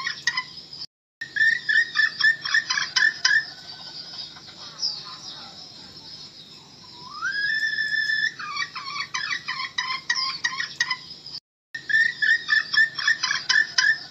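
Recorded red junglefowl hen calls played as a trapping lure: runs of rapid clucks. Between two runs, about halfway, a single whistled note rises and then holds for about a second. The sound cuts out for an instant near the end, then the clucking resumes.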